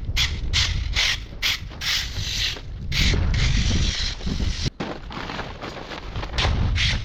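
Hand pruning saw cutting through a branch, rasping in quick back-and-forth strokes about two to three a second, the strokes running together after about three seconds over a low rumble.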